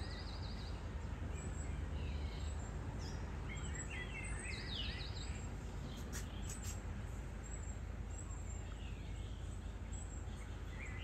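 Birds chirping, with a rapid high trill twice, over a steady low rumble from distant diesel earthmoving machinery.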